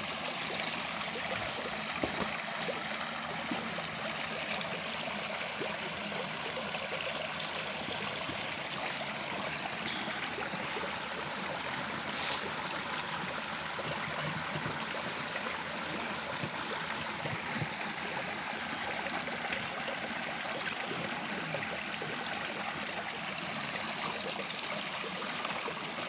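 Shallow woodland creek running steadily over a small riffle, with one sharp click about halfway through.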